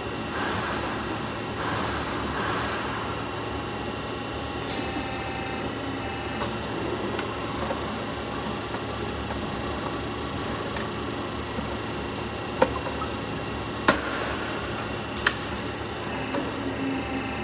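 Downspout elbow machine running: a steady machine hum with many steady tones. About five seconds in comes a burst of hiss, and there are a few sharp knocks in the second half.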